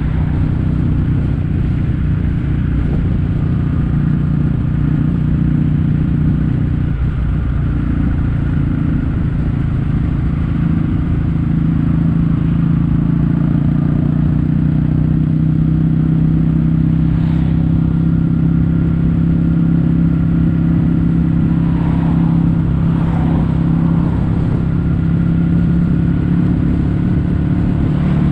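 Kawasaki W800's air-cooled parallel-twin engine running under way through a Yamato stainless-steel Cabton-style silencer, its exhaust note holding nearly steady at an even speed.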